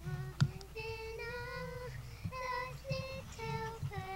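A child's voice singing a melody of held, sliding notes, over low rumble and thumps, with one sharp knock about half a second in.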